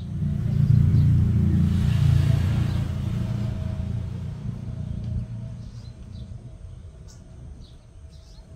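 A motor vehicle passing close by: a low rumble that swells over the first couple of seconds and fades away over the next few. Faint, short, high bird chirps come in near the end.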